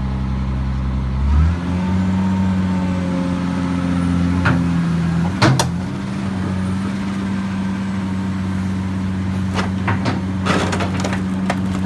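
Hydraulic excavator's diesel engine running, revving up about a second in and then holding steady under load. Two sharp knocks come around the middle, and near the end a rapid run of cracks and snaps as the machine starts breaking into the wooden house.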